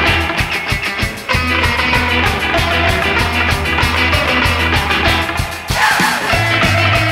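Surf rock music with a steady beat: guitar over bass and drums. The band dips briefly about a second in and again near the end, then the bass moves up to a higher note.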